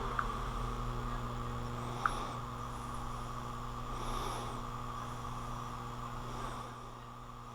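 Steady low electrical hum over a background hiss, with two small sharp clicks, one just after the start and one about two seconds in.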